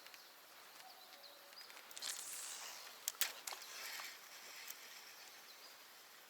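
Quiet outdoor ambience with a short whooshing swell about two seconds in and a couple of sharp clicks about a second later.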